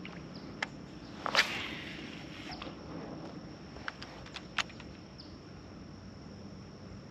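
Quiet ambience with a few sharp clicks and knocks from an angler handling his rod and spinning reel in a kayak. The loudest comes about a second and a half in. A thin, steady high-pitched whine runs underneath and cuts off suddenly about five seconds in.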